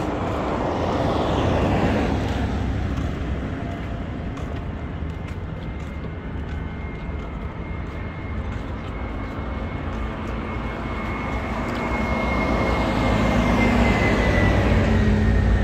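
Road traffic passing on a wet road: one vehicle goes by about a second in, and another swells up near the end. A thin high whine holds for several seconds and drops in pitch as that vehicle passes.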